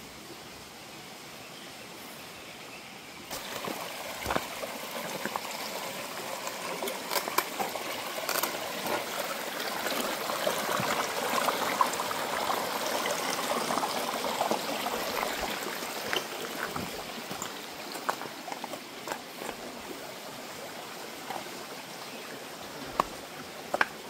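Stream water running and trickling over rocks. It steps up suddenly about three seconds in, is loudest around the middle, then eases off, with scattered sharp clicks throughout.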